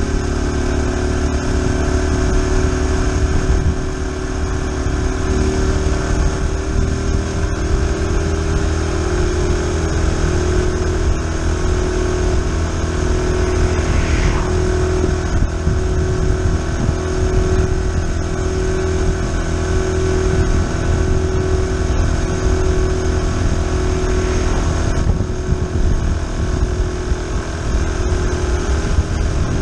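Honda Super Cub C125's 125 cc air-cooled single-cylinder four-stroke engine running steadily at cruising speed, heard from the handlebars with heavy wind noise on the microphone. An oncoming car goes by about halfway through.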